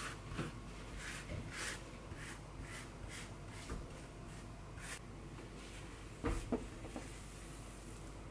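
Plastic dough scraper spreading a soft filling over rolled-out dough: a run of short scraping strokes, about two a second, then two knocks about six seconds in.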